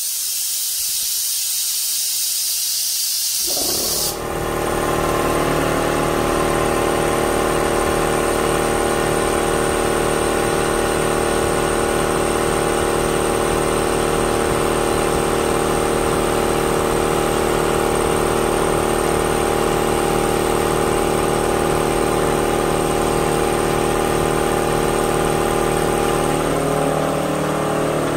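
Compressed air hissing out for about four seconds and cutting off suddenly, as the Central Pneumatic 29-gallon compressor's 2 HP motor and oil-lubricated pump kick on just before and then run steadily, refilling the tank after it has been drawn down.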